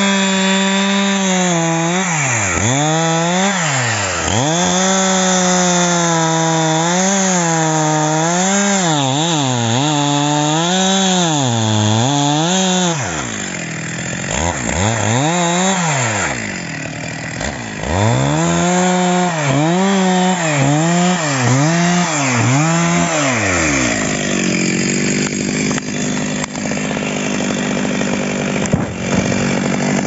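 Stihl two-stroke chainsaw cutting into the base of a standing dead pine. The engine note keeps dropping as the chain bogs into the wood and picking up again as the load eases. It runs quieter for a few seconds around the middle, then holds a steadier, lower note near the end.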